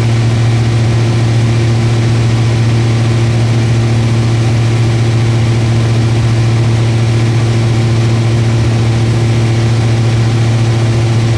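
Cessna 172's piston engine and propeller droning steadily in flight, heard inside the cabin: an unchanging low hum with a constant hiss over it.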